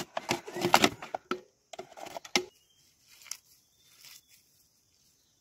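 Water poured from a plastic bottle into a metal bowl of green leaves, then hands swishing and squeezing the wet leaves. The handling is faint, soft crinkling and splashing after about two and a half seconds.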